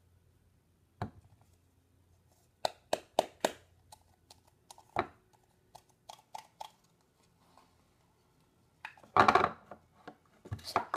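Handling of a small plastic Play-Doh tub and a plastic bowl: a series of sharp clicks and taps, clustered a few seconds in, with a longer, louder rustle about nine seconds in.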